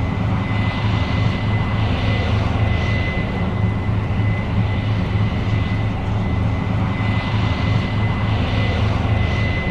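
New Holland CR 7.90 combine running steadily as it harvests corn: a constant low engine drone with a thin, steady high whine over it.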